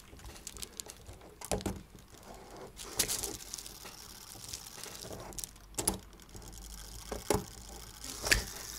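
A few sharp, scattered clicks and taps of a let-down tool and a small pick working on a brass clock movement's mainspring arbor and click, with the loudest near the end.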